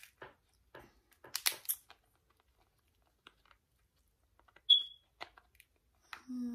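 King crab leg shell being cut and cracked open, giving scattered sharp cracks and crunches, most of them in the first two seconds. About two-thirds of the way through comes a single short high-pitched chirp, the loudest sound here.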